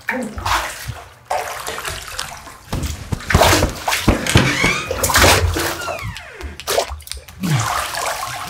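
Bath water sloshing and splashing in a filled bathtub as a person sweeps his arms through it, in irregular surges that are loudest in the middle.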